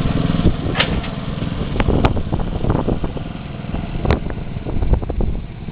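Small lawnmower engine running in a home-built car, with a couple of sharp clicks or knocks over it.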